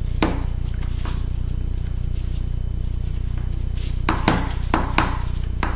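A few sharp clicks and knocks of laptop parts and tools being handled during disassembly: one about a quarter second in, then a quick cluster of four or five near the end, over a steady low hum.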